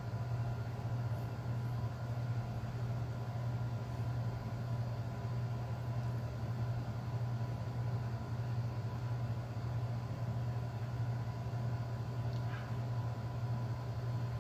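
Steady low hum of a running machine or appliance, unchanging throughout.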